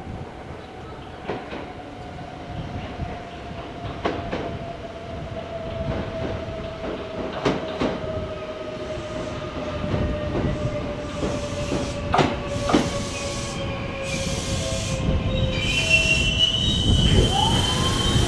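Kintetsu limited express electric train pulling into a station platform and braking to a stop. A whine falls slowly in pitch as it slows, the wheels click over rail joints, and a high squeal comes as it stops near the end.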